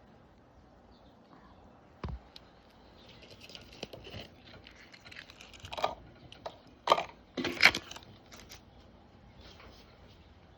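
Papers being handled and rustled, with a knock about two seconds in and a few sharp clicks and taps, the loudest around seven to eight seconds in.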